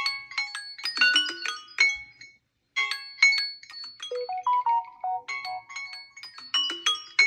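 Smartphone ringtone playing: a melody of short, chiming electronic notes that breaks off for a moment about two and a half seconds in, with a lower run of notes near the middle.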